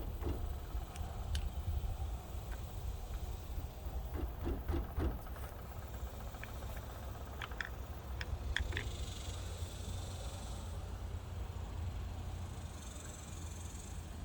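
Faint handling noises of hand tools and wire being worked, with a few dull knocks and a cluster of small sharp clicks partway through, over a low steady rumble.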